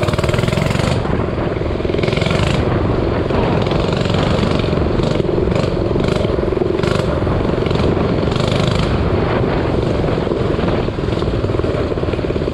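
Minibike engine running steadily as the bike is ridden, with short hissy bursts of noise several times.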